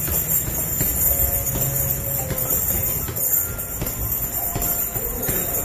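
Heavy-bag boxing workout: a few irregular dull thuds of punches and footwork over a steady background of fan noise and hum.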